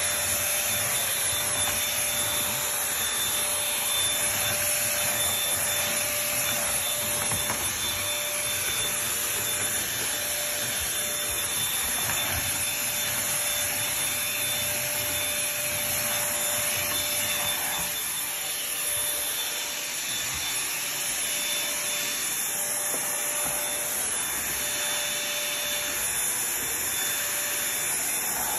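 Bissell 2030L stick vacuum running steadily: a rushing airflow with a thin, steady motor whine on top.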